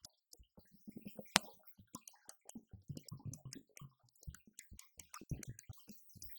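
Electronic drum kit sound from a Roland TD-50X module played softly: sparse, irregular light hits and clicks with some low thumps, one sharper hit about a second and a half in.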